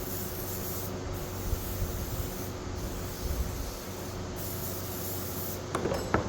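Aerosol spray can spraying in four bursts of about a second each, with short pauses between them, followed by a few sharp clicks near the end.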